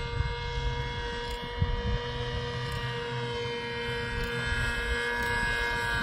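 Radio-controlled model Curtiss Pusher biplane's motor and propeller running at a steady pitch in flight, a steady whine.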